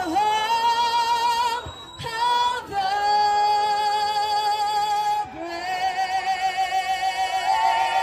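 A woman singing long, held notes with a strong vibrato, in a few sustained phrases separated by short breaths.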